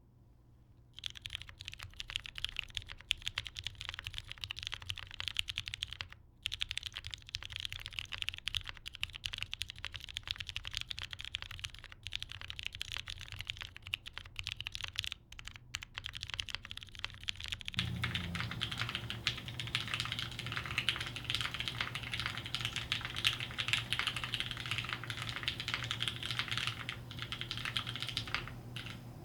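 Steady fast typing on a gasket-mounted mechanical keyboard with lubed vintage Cherry MX Brown switches and GMK keycaps on an aluminium plate. It starts about a second in and has short pauses. About two-thirds of the way through, the sound turns fuller and carries a low hum.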